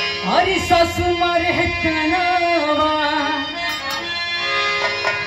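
Live Bhojpuri folk song: a woman singing into a microphone over a held, sustained instrumental accompaniment, her voice sliding up and down in pitch.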